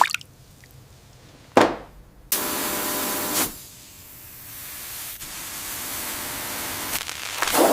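Bursts of spraying hiss: a sharp short one about one and a half seconds in, a steadier one of about a second just after, a hiss that slowly builds, and the loudest burst near the end.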